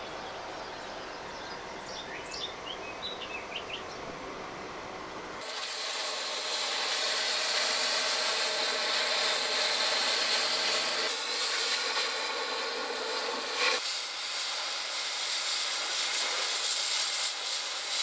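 Oxy-fuel cutting torch cutting teeth into a rusty square steel tube: a steady loud hiss of the cutting jet that starts suddenly about five seconds in, after a quieter stretch of outdoor background.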